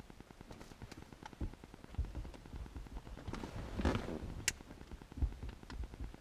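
Scattered plastic clicks, knocks and low thumps from hands working at a car's interior light housing and trim. A brief scrape comes just before the four-second mark, and a sharp click about half a second later.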